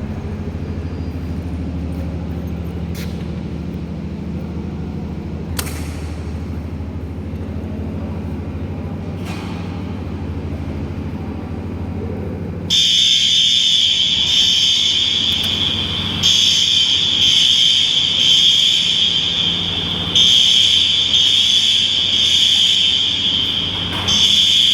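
A steady low hum, which stops about halfway as a fire alarm sounder starts: a loud, high, continuous tone that drops out briefly about every four seconds.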